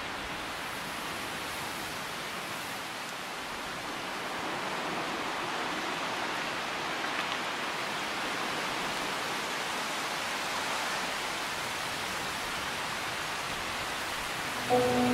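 A steady, even rushing noise like wind or distant rain, growing slightly louder partway through. Just before the end a sustained music chord comes in abruptly.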